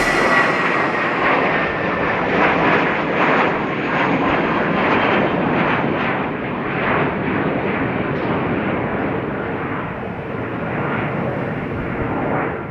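Jet airliner engines running loud, an even rushing noise that swells and ebbs unevenly and starts fading out near the end.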